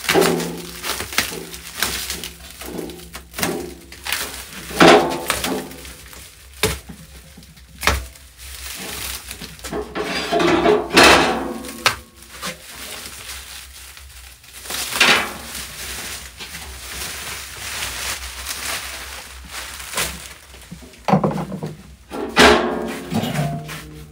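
Plastic stretch wrap being torn and pulled off a metal stove: irregular loud crinkling and ripping, with short squeals as the film stretches and an occasional thunk against the stove's metal body.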